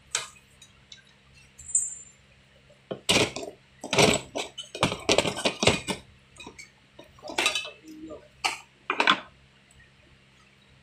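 Metal clinks and knocks of hand tools and fittings being worked at an air-conditioner outdoor unit, in irregular clusters: one just after the start, a dense run from about three to six seconds in, and a few more near the end. A faint steady low hum lies underneath.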